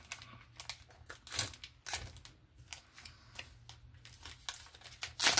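Foil booster-pack wrapper being torn open and crinkled by hand: a string of irregular crackles and short rips, the loudest near the end.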